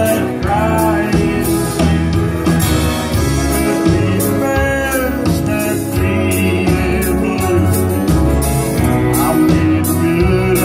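Live country music through a PA: a man singing over acoustic guitar and a band with a steady drum beat.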